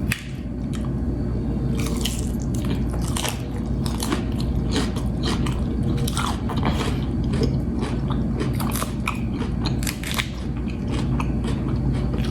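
Close-miked chewing and biting of food, with many small crunches and wet mouth smacks, over a steady low hum.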